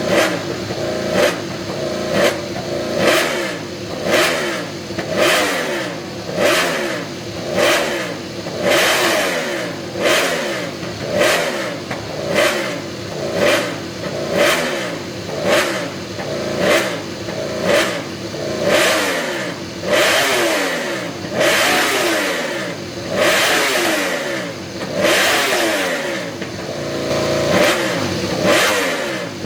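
Racing motorcycle engine revved in sharp throttle blips about once a second, the pitch jumping up and falling away after each blip.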